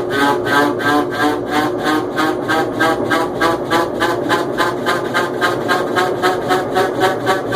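GE washing machine running with a loud, rhythmic mechanical pulsing, about four beats a second.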